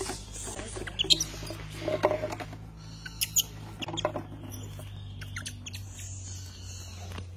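Young macaque monkeys giving short, high-pitched squeaks and chirps in scattered bursts through the first four seconds, over a steady low hum.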